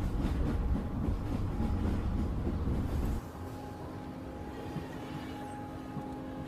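A loud low rumble for about three seconds, which cuts off abruptly. Quiet background music then begins with soft held notes, the intro of the song added to the video.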